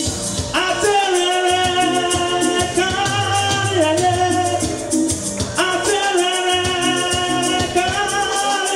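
Music: a Yoruba-language song with steady percussion, carried by two long held notes of about five seconds each.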